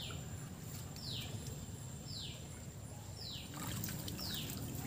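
A bird calling, a high note that slides downward, repeated about once a second, over the steady low rush of a flooded, fast-flowing stream.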